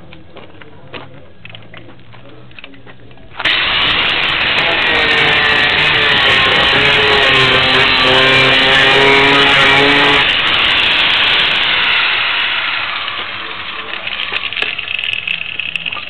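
A loud clip of music, noisy and distorted with a few held notes that step down in pitch, cuts in suddenly about three seconds in and fades away over the last few seconds.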